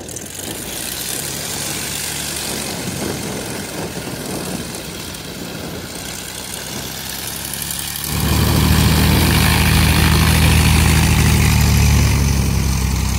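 Single-engine light propeller plane's piston engine running as the vintage high-wing taildragger taxis across the grass, growing much louder about eight seconds in as it passes close by.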